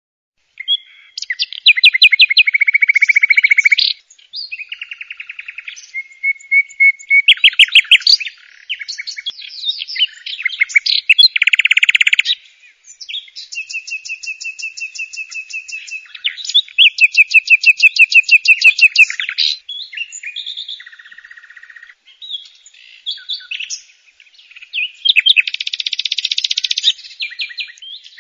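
A songbird singing: a long run of varied high-pitched phrases of rapid repeated notes and trills, separated by short pauses.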